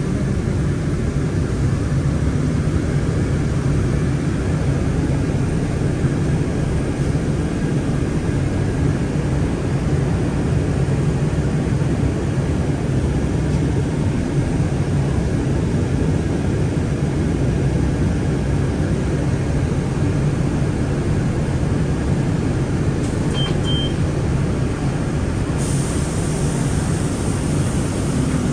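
Steady low rumble of a city bus's engine and running gear heard from inside the cabin while the bus is moving. About two-thirds of the way through there are two short high beeps, and near the end a steady hiss comes in.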